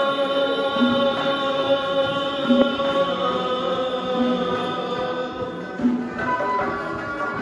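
Live Uzbek traditional song: a man's voice holds one long sung note, over a doira frame drum beating a slow, even pulse and a long-necked lute. About six seconds in, the voice stops and the lute's plucked melody carries on with the drum.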